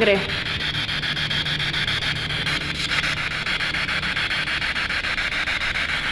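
Handheld spirit box radio scanning through stations: a steady hiss of static, chopped into rapid short fragments as it sweeps the band.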